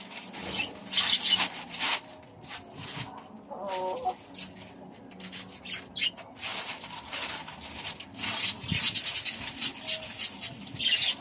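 Plastic bag rustling and crinkling in irregular bursts as it is handled, loudest in the first two seconds and again through the second half. About four seconds in, a bird gives one short wavering call.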